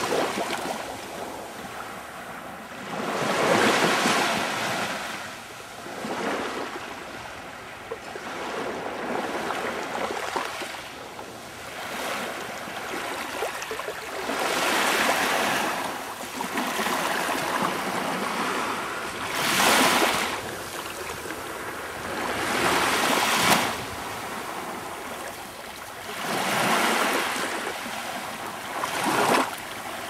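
Small waves washing up on a sandy beach: a hiss of surf that swells and fades every three to four seconds.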